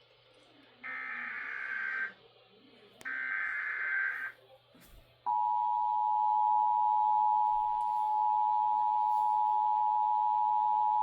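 Emergency Alert System tones: two SAME header data bursts of about a second each, then about five seconds in the steady two-tone EAS attention signal starts and holds. They herald a National Weather Service severe thunderstorm watch.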